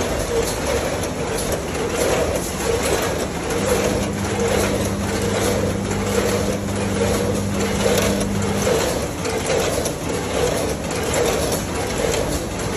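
Snack packaging machinery running, a steady clatter with a regular pulse about every two-thirds of a second. A low hum joins in about four seconds in and stops about five seconds later.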